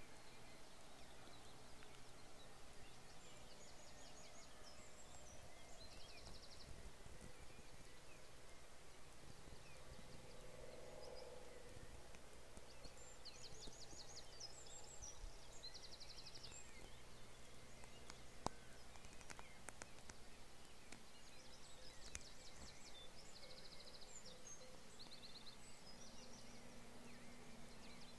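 Faint birdsong: short, high, rapid trilled phrases from small songbirds, repeated several times over a quiet background with a faint low hum. One sharp click about two-thirds of the way through.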